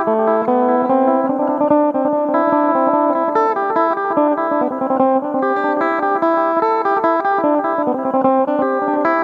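Electric phin, the Isan Thai plucked lute, played through an effect: quick plucked melody notes over a steady drone string.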